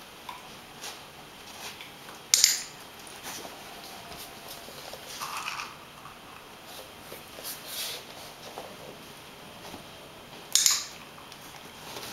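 Scattered small clicks and rustles of handling, with two loud sharp clicks about eight seconds apart.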